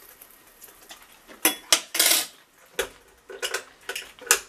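Metal spoon clinking and scraping against a dish: a run of sharp, separate clinks starting about a second and a half in, one a little longer about two seconds in.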